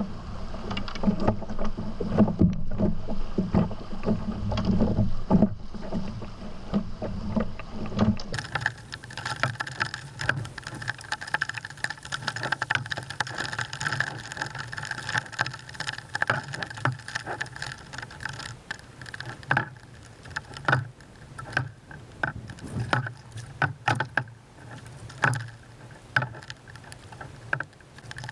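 Canoe moving along a river: rushing water with a low rumble on the microphone, changing abruptly about eight seconds in to lapping water with many sharp clicks and knocks.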